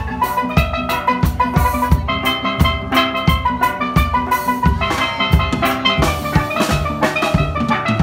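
Steel drum band playing live: several steelpans ring out a melody and chords of quickly struck notes over a drum kit keeping a steady beat.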